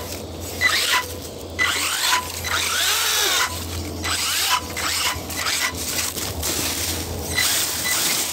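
Electric drive motor of an RC rock bouncer whining in repeated bursts of throttle, its pitch sweeping up and down around the middle, while the big tyres scrabble over rock and through dry leaves and brush.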